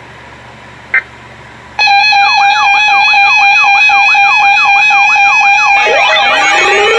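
Synthesized emergency alert attention signal. A short high beep sounds about a second in. A loud steady electronic tone then starts suddenly, with a siren-like sweep that swoops down and up several times a second. Near the end it turns into layered rising glides and new tones.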